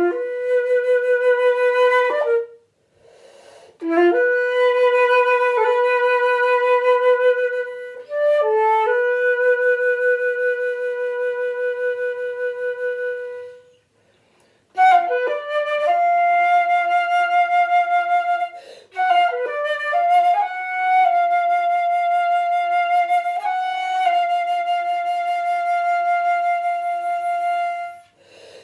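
Unaccompanied flute playing long held notes, each reached by a quick flourish of short notes. The phrases are broken by two short silences, one about three seconds in and one near the middle.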